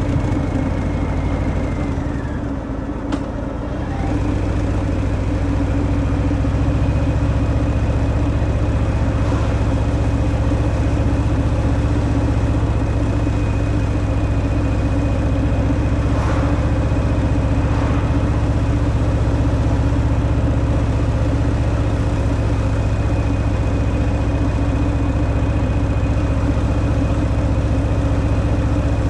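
Harley-Davidson Fat Boy's V-twin engine running through its stock exhaust on the move, a steady low drone. It eases off briefly a couple of seconds in, with a single click, then holds steady again.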